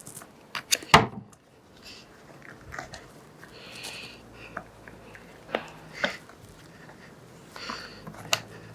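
A screwdriver working a new rubber fork spring gaiter over the edge of a metal spring seat: scattered sharp clicks and knocks, the loudest about a second in, with a brief scratchy rubbing in the middle.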